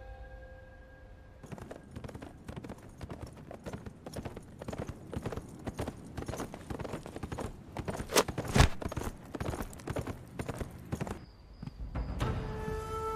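Horses' hooves clattering at a gallop: a dense, fast run of hoofbeats that starts about a second and a half in and stops near the end, with one sharp louder knock past the middle. Music comes in just before the end.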